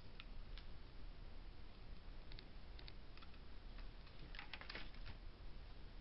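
Faint scattered clicks and taps of hands handling a felt-covered collar and felt flowers on a tabletop, with a quick run of clicks about four and a half seconds in.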